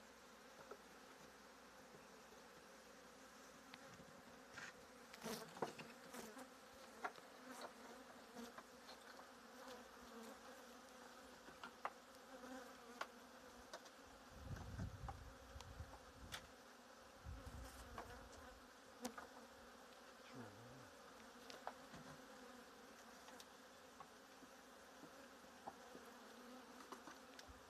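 Faint, steady hum of honeybees buzzing around small wooden queen-mating nucs, with scattered light knocks and clicks from handling the wooden boxes. Low handling rumbles come about halfway through.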